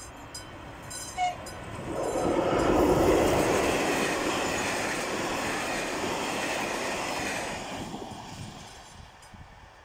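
Passenger train passing over a level crossing: the rumble of coaches on the rails swells to its loudest about three seconds in, holds, and fades away near the end. At the start the AŽD 71 crossing signal's classic bell is heard ringing in even strokes, and a short horn toot sounds about a second in.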